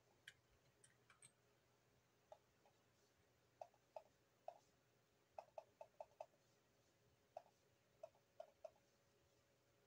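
Faint, irregular clicks of a computer mouse, some single and some in quick runs of three to five, over quiet room tone.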